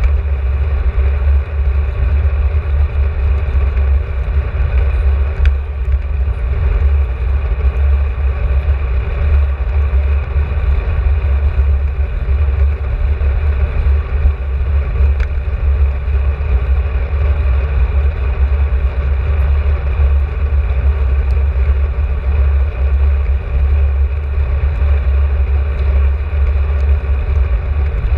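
Wind buffeting the microphone of a camera on a moving bicycle: a loud, steady low rumble that does not let up.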